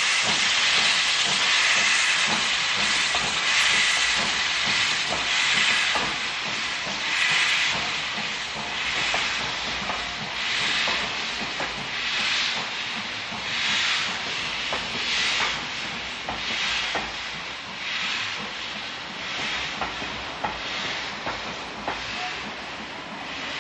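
Steam locomotive starting a passenger train: a loud hiss of steam at first, then exhaust beats about a second apart that quicken as it gathers speed. Coach wheels click over the rail joints as the train rolls past, and the sound fades toward the end.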